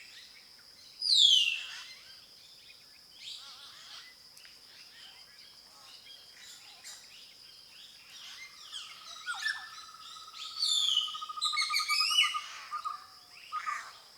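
Wild birds calling and chirping, with a loud downward-sliding whistle about a second in and a busier spell of calls in the second half. A steady high-pitched whine runs underneath, and a fast trill on one pitch joins from about eight seconds in.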